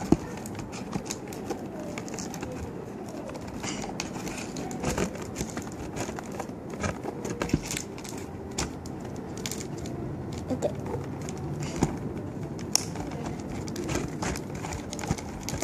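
Irregular clicks, taps and crinkles of toy packaging and cardboard being handled close to the microphone.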